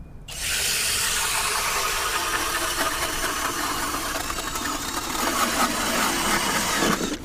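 Power ice auger boring a hole through thick pond ice, the bit grinding up ice shavings. It starts about a third of a second in, runs steadily and stops near the end.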